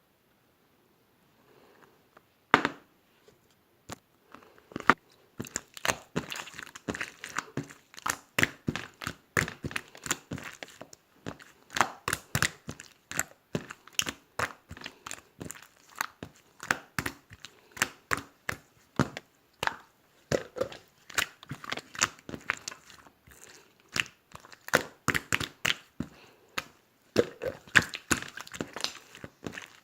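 Close, irregular crinkling and crackling, many sharp snaps a second, starting about two and a half seconds in and running on densely.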